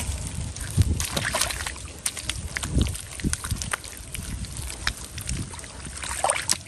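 Bare foot sloshing and squelching through wet mud at the water's edge of a ditch, smoothing the bank flat, with scattered small clicks and crackles.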